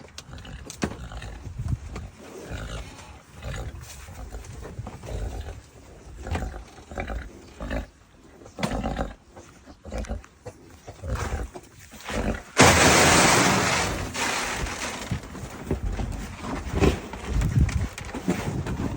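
Black Angus cattle mooing and bellowing again and again, excited for feed. About two-thirds of the way through, a sudden loud rush of noise breaks in and fades over a second or two.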